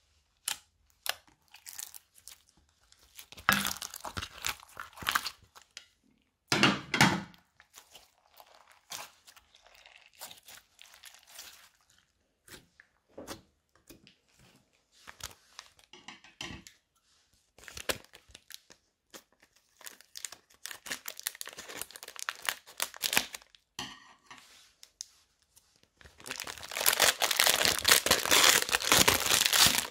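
Slime squeezed and poked by fingers, giving scattered short clicking pops and squelches. About 26 seconds in, a plastic package of foam-bead dough starts crinkling loudly and continuously as it is handled.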